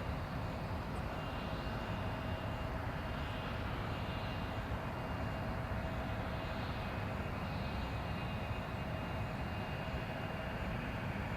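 Airliner engines running steadily: a constant whine over a low rumble that neither rises nor falls.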